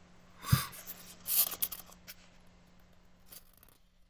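A hand handling a paperback graphic novel on a table. There is a soft knock about half a second in, then short bursts of paper rustling as the hand takes hold of the page to turn it.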